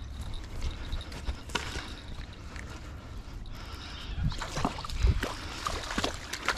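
A hooked redfin splashing at the water's surface close to the bank, mostly in the second half, with scattered clicks and rustles from handling the rod and landing net.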